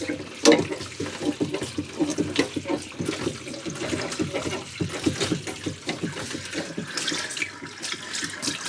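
Water splashing into a small sink from a faucet fed by a manual foot pump (Whale Gusher), coming in irregular spurts.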